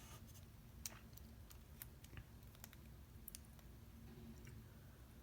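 Faint, scattered clicks and taps of small parts being handled and fitted into an iPhone SE during a display repair, over a low steady room hum.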